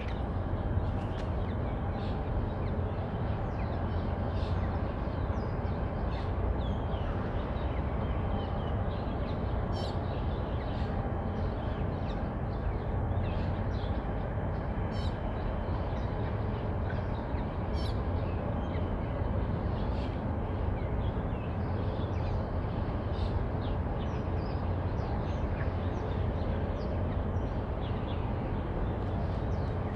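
Steady low rumble of waterfront ambience, with frequent short bird calls throughout.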